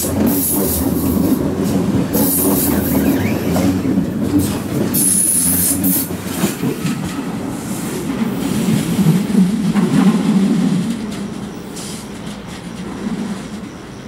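ICE high-speed train departing and running past at low speed, with wheel rumble, a high squeal about five seconds in and knocks over the points. The sound drops away after about eleven seconds as the train moves off.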